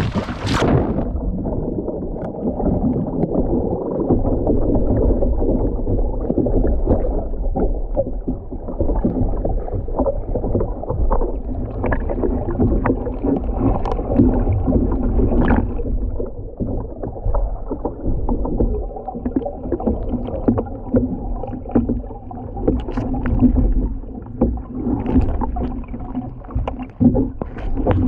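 Kayak on the water: muffled sloshing of water against the hull with frequent small knocks and ticks.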